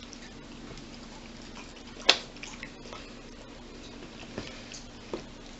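Quiet eating at a table: faint chewing and a few light clicks of forks and dishes, the sharpest about two seconds in, over a steady low hum.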